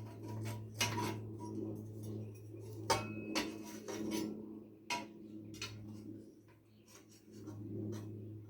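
Small metal engine parts clinking and tapping as they are handled and fitted during reassembly of a small tiller engine, in scattered sharp clicks, the loudest about three seconds in, over a steady low hum.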